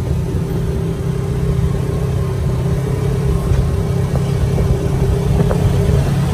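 Polaris RZR side-by-side's engine running steadily as it cruises, a constant drone.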